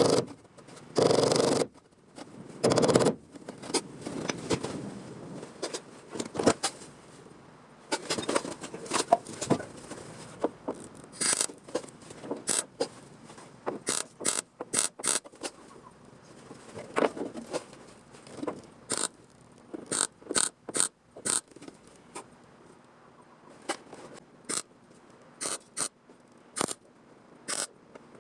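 Hand work on car-body sheet metal: several scraping strokes, then a long run of short, sharp metallic clicks and brief rasps with pauses between them.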